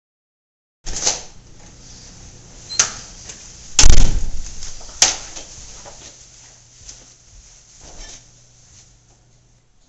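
An interior door bumping and banging shut, the loudest a heavy thud about four seconds in, with sharp knocks before and after it and fainter knocks later, over a faint low hum.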